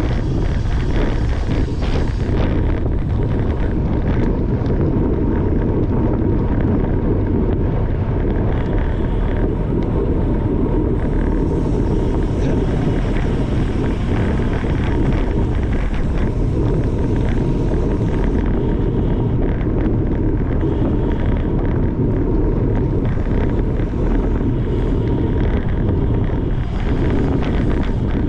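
Wind rushing over the microphone of a camera riding in a bicycle race: a loud, steady low rush.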